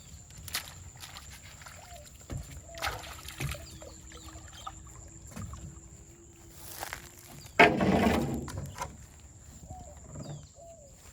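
A small boat being handled at the water's edge: scattered knocks and bumps, with a louder rush of noise about three-quarters of the way through.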